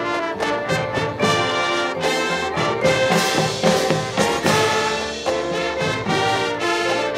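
Marching band playing at full volume, its brass section leading with held chords and rhythmic accented notes.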